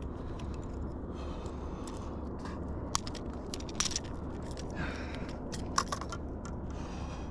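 Handling noise while a bonito is held up by hand with a lure in its mouth: a few scattered sharp clicks and scrapes over a steady low rumble.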